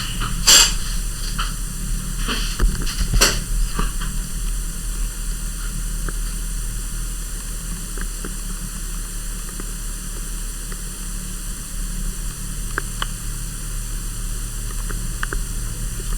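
Steady hiss and low hum, with a few sharp knocks and rustles from the camcorder being handled and repositioned in the first four seconds, then only the steady noise with a few faint ticks.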